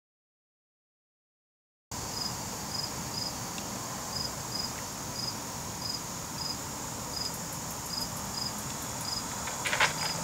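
Near silence for about two seconds, then an insect chorus: a steady high-pitched drone with short paired chirps repeating a little faster than once a second. Near the end there is a small splash on the water.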